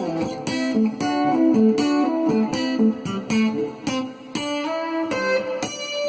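Cort GA5F-MD acoustic-electric guitar being played, a melody of plucked notes a few per second, each note ringing on.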